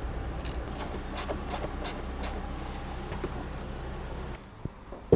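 Hard plastic engine-bay parts rubbing and clicking as a plastic pipe and the plastic engine cover are pushed back into place by hand, over a steady low hum; the handling sounds stop near the end.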